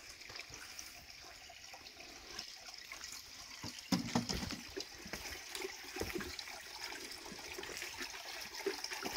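Spring water trickling and splashing from a small wooden spout over stones into a shallow pool, with a brief louder splash about four seconds in.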